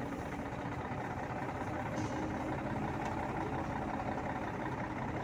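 Heavy vehicle's engine running steadily at a low, even speed.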